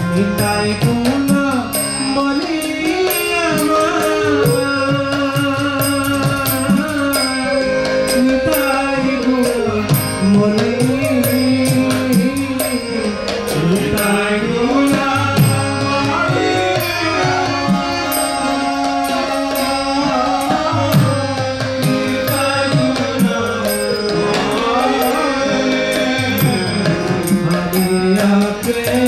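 Devotional kirtan music: a voice singing a chant over steady hand-drum strokes.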